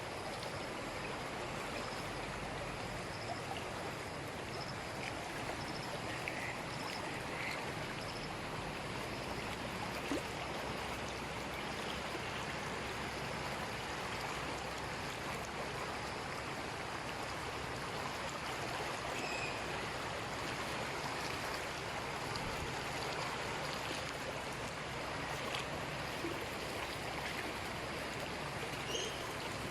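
Steady rushing of flowing floodwater, an even, unbroken noise.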